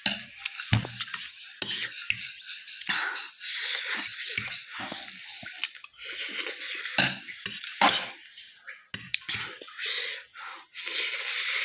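Cutlery clinking and scraping against a dish in irregular short strokes as noodles are eaten.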